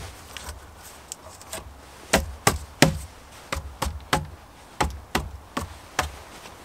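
One knock at the start, then about a dozen sharp wooden knocks in quick, uneven succession from about two seconds in, as the peeled wooden poles of a bushcraft bed base are knocked into place.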